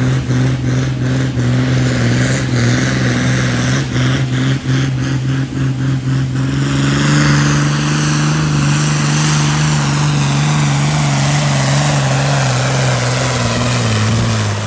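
John Deere farm tractor's diesel engine running flat out under load as it drags a weight-transfer pulling sled. Uneven knocks sound through the first half, the pitch rises slightly about halfway, and it starts to drop at the very end as the engine is throttled back.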